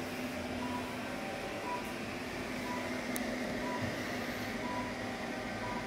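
Therapy laser unit in use: a short beep about once a second over a steady machine hum, with one faint click partway through.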